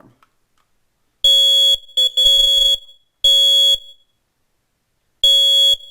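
Home smoke alarm sounding its loud, high-pitched beep in the temporal-three pattern: three half-second beeps, a pause, then the next set of three beginning.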